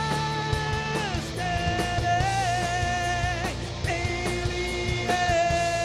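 Groove metal band playing live: long held melodic notes, several sliding down in pitch at their ends, over heavy drums and bass.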